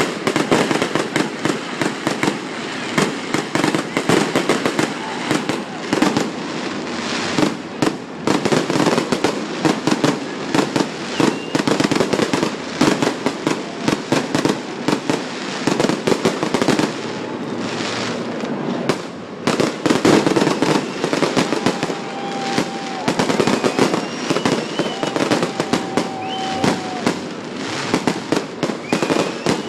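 Fireworks display: a dense, continuous run of bangs and crackling shell bursts. In the second half a few short held tones sound over the bursts.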